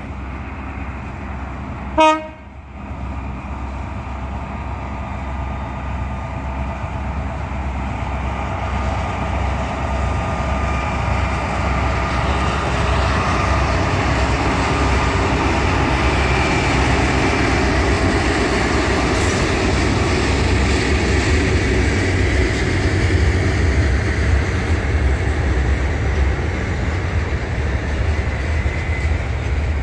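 A train horn gives one very short, loud toot about two seconds in. A train is then heard running, a steady rumble that grows louder over the next ten seconds or so and stays loud.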